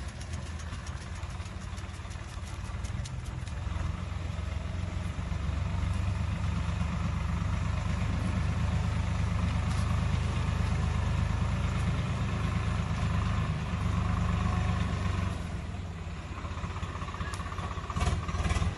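Swaraj 744 diesel tractor engine running under load, driving a PTO-powered Chopking banana cutter that chops through banana stems: a steady low engine drone with the noisy chopping of the cutter over it. It grows louder a few seconds in and drops back a little after about fifteen seconds.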